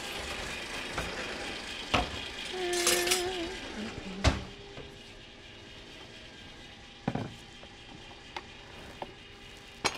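Kitchen utensils and dishes handled on a counter: a spoon picked up, and glass and hard kitchenware knocking and clinking in a few separate knocks, the loudest a little after four seconds in.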